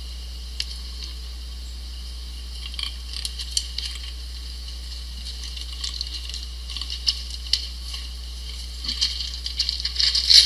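White-tailed bucks scuffling and starting to spar: scattered sharp clicks and crackles of hooves and antlers, growing denser and louder near the end as they come together, over a steady low hum.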